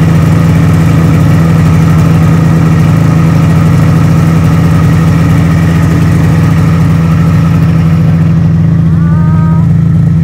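Snowmobile engine idling, loud and steady, an even low hum with no change in speed.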